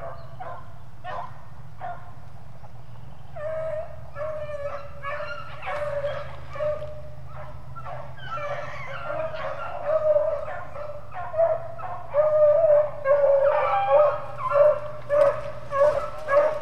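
Pack of beagles baying on a rabbit's trail: scattered howling calls from about three seconds in, growing louder and coming close together, several a second, in the second half.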